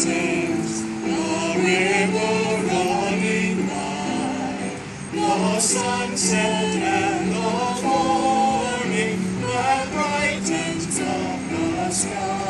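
A small choir of men and women singing a hymn together in held, sustained notes.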